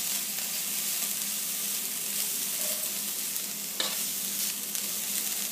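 Grated carrot frying in ghee in a nonstick pan with a steady sizzle, stirred with a steel spoon that scrapes the pan, sharpest about four seconds in. A low steady hum runs underneath.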